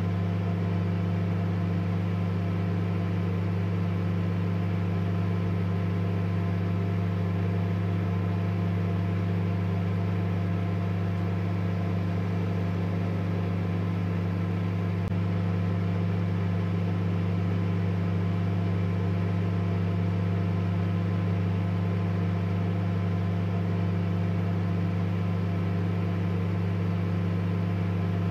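A steady low hum that stays unchanged throughout, with a strong deep drone and fainter higher tones over a light hiss.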